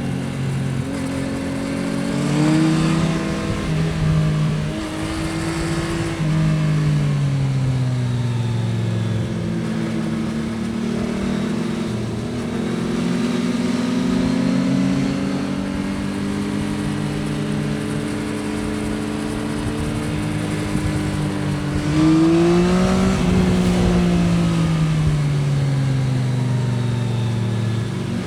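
Yamaha XSR900's CP3 three-cylinder engine heard from the rider's seat, its pitch climbing and dropping as the bike accelerates, shifts and slows through corners. A sharp rev climb comes a little past two-thirds through, followed by a long falling pitch as the bike slows.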